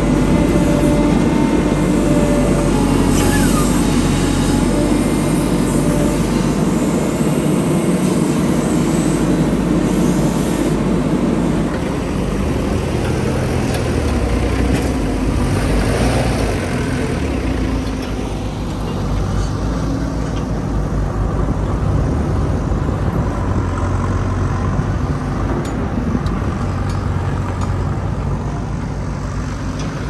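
JCB 3DX backhoe loader's diesel engine running under working load while digging and loading mud, its level rising and easing as the work goes on.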